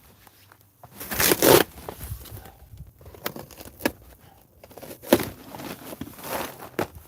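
Cardboard shipping box being torn and pulled open, with rushes of tearing and crinkling packaging, the loudest about a second in, and a few sharp knocks between.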